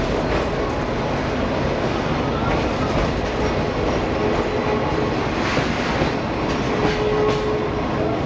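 Sightseeing trolley train running, heard from inside the carriage: a steady rumble of wheels on rails with a clickety-clack and a faint wheel squeal now and then.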